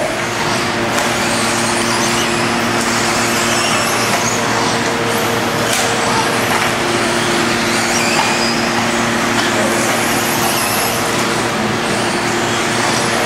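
1/10-scale off-road RC buggies racing on a clay track: a steady hiss of motors and tyres with faint high motor whines rising and falling, over a constant low hum.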